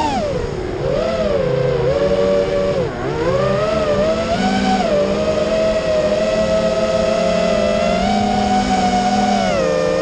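FPV quadcopter's electric motors and propellers whining close to the onboard camera, the pitch falling and rising with the throttle. It dips sharply twice in the first three seconds, climbs again, then holds fairly steady.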